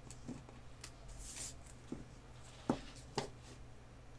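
A handful of soft clicks and taps from hands handling a HomePod amplifier circuit board and a pair of tweezers on the workbench, the sharpest two a little past halfway.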